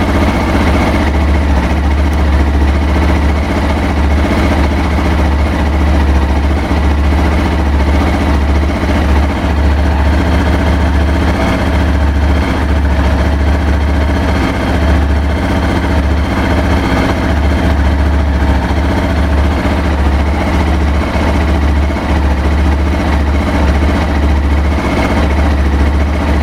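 Honda XR250 Baja's single-cylinder four-stroke engine idling unevenly, its low, steady chug faltering briefly now and then. The owner suspects an air leak letting extra air into the engine.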